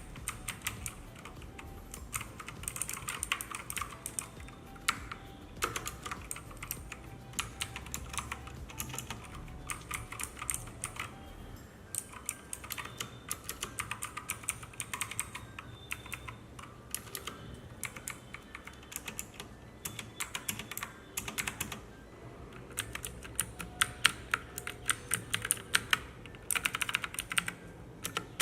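Typing on a Cosmic Byte CB-GK-12 full-size mechanical keyboard with clicky blue (Jixian) switches: fast runs of sharp keystroke clicks with brief pauses between runs.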